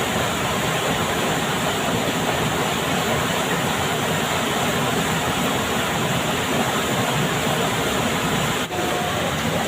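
Steady rush of a fast-flowing river, an even hiss of moving water that dips briefly once near the end.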